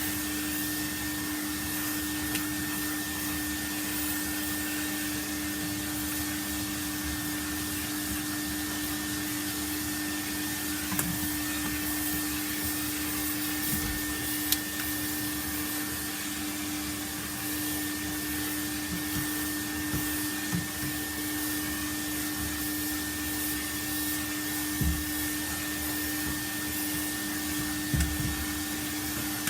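Vacuum cleaner running steadily, a constant motor hum with a few brief knocks.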